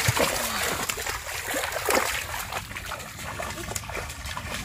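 Feet wading through shallow, muddy floodwater, with irregular splashes and trickling water.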